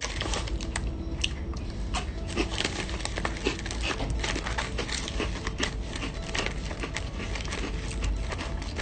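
A black packaging pouch being bitten, torn open and handled, making dense, irregular crinkling and crackling.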